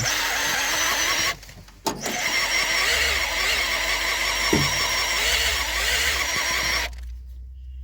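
Cordless drill spinning the engine's oil pump through a welded-on extension shaft to prime the lubrication system of a rebuilt VAZ-2106 engine, running with a steady whine. It runs about a second, stops briefly, then runs again for about five seconds and stops.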